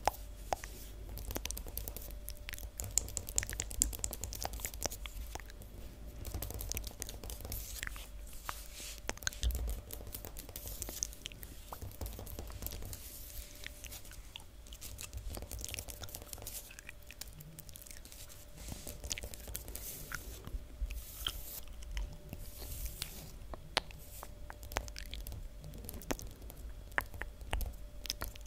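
Long fingernails tapping and scratching on a hard floor: many quick, irregular clicks mixed with short scratchy rustles.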